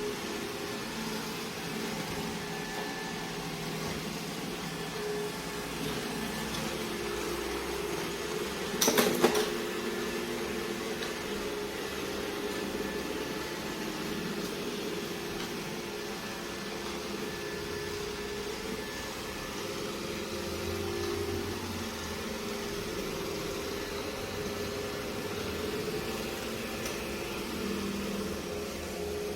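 Robot vacuum running with a steady motor and brush hum, and a brief knock or clatter about nine seconds in.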